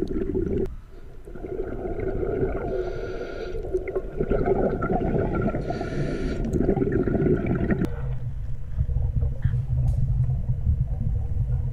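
Underwater water noise picked up by a camera in its waterproof housing: a muffled, churning gurgle with two short hissy bursts. About eight seconds in it changes abruptly to a lower, duller rumble.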